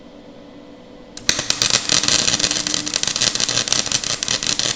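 Gasless flux-core MIG welder (Nagano MIG 130) striking an arc about a second in, then welding thin 18-gauge steel with a loud, rapid, irregular crackling and popping. The wire speed is set too fast for the low amperage setting, so the machine is still asking for more amperage.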